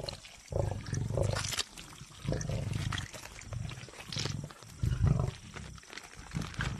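Lionesses growling in short, low bursts about once a second as they feed on a carcass, with the tearing and chewing of hide and meat between them.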